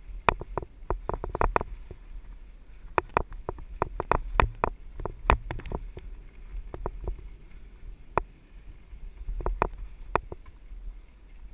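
Mountain bike rattling over a rough dirt trail: irregular sharp knocks and clatter in clusters as the bike jolts over roots and bumps, over a steady low rumble.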